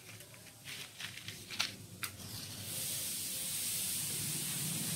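A few light clicks and clinks as the small brass burner of an antique hot-air table fan is handled, then a steady hiss that starts about two and a half seconds in and holds.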